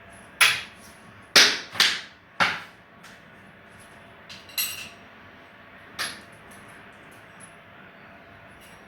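Sharp clicks and knocks, six of them spread over about six seconds, three close together near the start, from the new flex hose and its fittings being handled for connecting to the tap.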